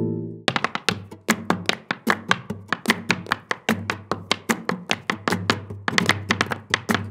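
Flamenco dancer's footwork (zapateado) on a wooden floor: a rapid, uneven run of sharp heel and shoe strikes, about four to six a second. A flamenco guitar chord rings out at the start, and low guitar notes sound under the strikes at times.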